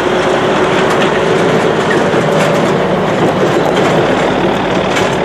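Tractor-trailer pulling an empty Benson flatbed, rolling past over gravel with a loud, steady rumble and rattle.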